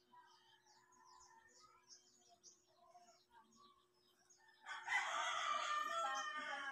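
A rooster crowing once, a single crow of about two seconds starting near the end, the loudest sound here. Faint high chirping comes before it.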